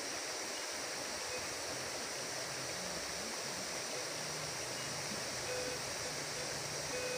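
Steady rushing of water from a waterfall.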